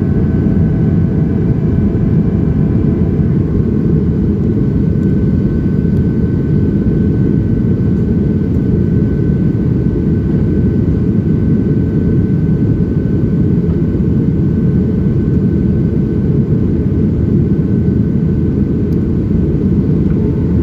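Jet engines of a Boeing 737-700 heard from inside the passenger cabin during the climb: a loud, steady, deep rumble with faint whining tones above it, some of which fade out about three seconds in.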